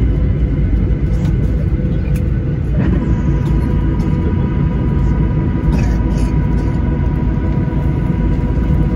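Steady low rumble inside the cabin of a Boeing 737-800 around landing, from the engines and airframe, with a faint thin whine joining about a third of the way in.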